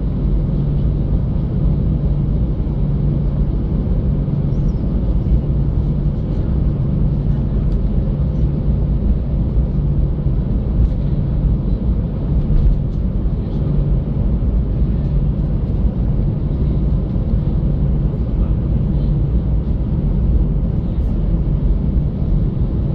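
Airbus A320-211 taxiing with its CFM56-5A1 turbofan engines running, heard from inside the cabin as a steady low rumble.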